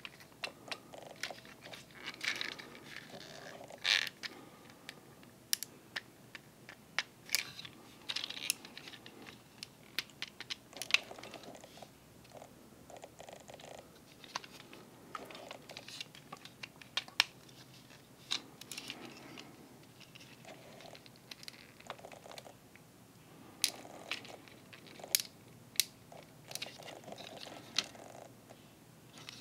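Small plastic Transformers figure, Masterpiece MP-54 Reboost, being handled and transformed: irregular sharp clicks and snaps of its plastic parts and joints being folded and pegged into place.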